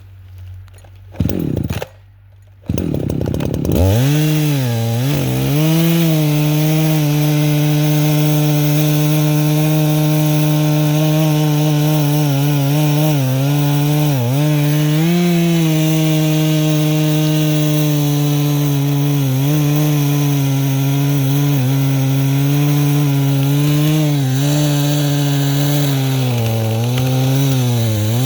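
Two-stroke chainsaw pull-started: a short sputter on the first pull, then it catches on the second. It then runs at high speed cutting into a maple tree, its pitch dipping briefly several times as the chain bogs in the wood.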